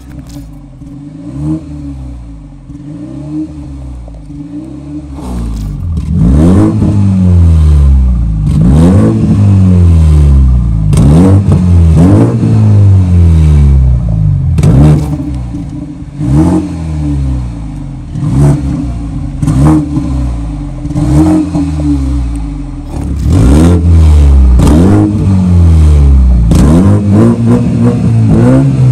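BMW 320i's turbocharged 2.0-litre four-cylinder through its tuned exhaust with a vacuum valve. It idles for about five seconds, then is revved again and again, more than a dozen quick rises and falls in pitch.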